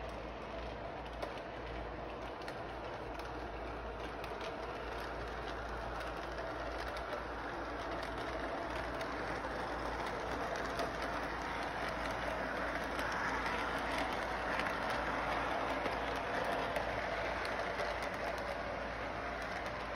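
Model train running on its track: a steady whirring rumble of the motor and wheels with faint clicks, getting louder as the cars pass close by.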